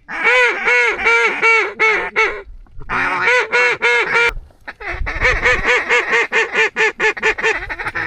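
Duck call blown in three runs of rapid, evenly spaced quacks, the last run the longest.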